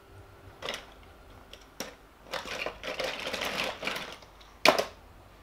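Small die-cast toy cars and hard plastic clattering as they are handled. There are a few separate clicks, then a rattle lasting about two seconds, and a sharp knock near the end.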